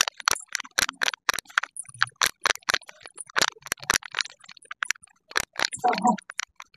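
A rapid, irregular series of sharp taps, several a second, with a brief voice sound near the end.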